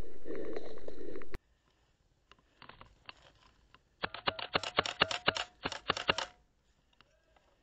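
Loud rustling and handling noise from a camera moving over dry leaf litter cuts off suddenly about a second in. After a few faint clicks, a rapid series of sharp clacks follows, about seven a second for two seconds: airsoft gunfire.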